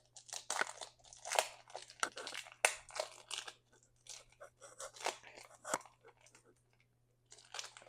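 Baseball trading cards being handled and flipped through by hand: card stock sliding and flicking against card stock and the opened pack wrapper, in quick irregular scratchy bursts that pause for about a second and a half near the end.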